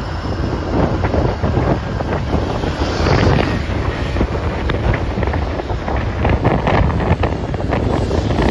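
Wind buffeting the microphone over the engine drone of a twin-propeller floatplane, a de Havilland Canada DHC-6 Twin Otter, flying low overhead.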